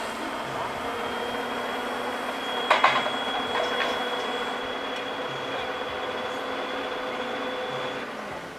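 Tatra timber truck running with its hydraulic loader crane working: a steady mechanical whine from about a second in until near the end, with a few sharp knocks about three seconds in, the loudest moment.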